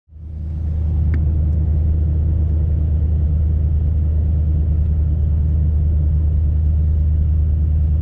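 Pickup truck driving on a snow-covered road, heard from inside the cab: a steady low rumble of tyres and engine. It fades in over the first second.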